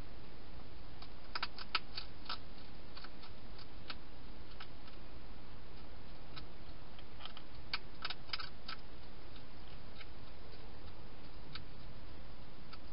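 European hedgehog crunching dry food: quick runs of small sharp clicks about a second and a half in and again about eight seconds in, with a few single clicks between, over a steady hiss.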